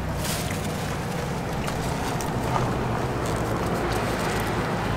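Steady low outdoor rumble of wind on the microphone and road traffic, with a few faint clicks.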